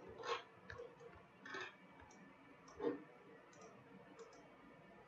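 Faint, scattered clicking of a computer mouse and keyboard at a desk, about a dozen small clicks with a few louder ones spaced roughly a second and a bit apart.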